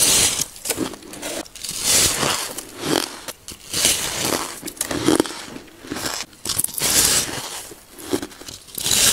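Close-up bites into a block of soft shaved ice, each bite crushing and breaking off a chunk, followed by chewing. The bites come as a series of short crackling bursts, roughly one a second.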